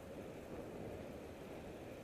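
Steady low rumble and hiss of a bicycle rolling along a paved path, heard from a camera on the bike.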